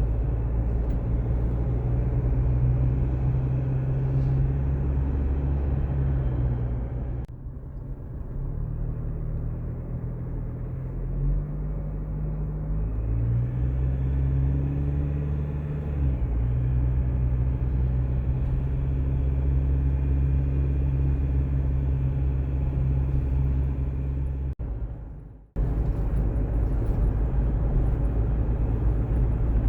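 A vehicle engine running steadily with a low hum, its pitch rising and falling a little partway through, broken by two abrupt cuts.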